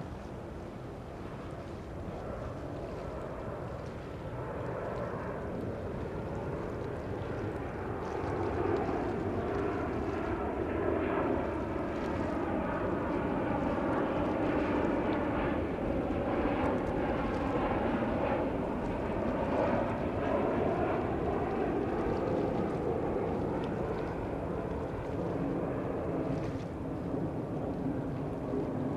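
Boeing 737-800 airliner's CFM56 turbofan engines on landing approach: a jet rumble that grows louder over the first several seconds as the plane nears, with whining tones that bend in pitch, then eases slightly near the end.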